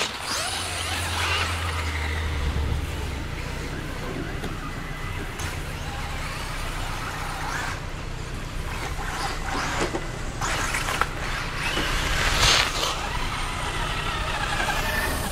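Radio-controlled Axial SCX10 crawler trucks driving over grass and snow: the whine of their electric motors and geartrains with tyre noise, swelling in a few brief surges in the second half as they speed up.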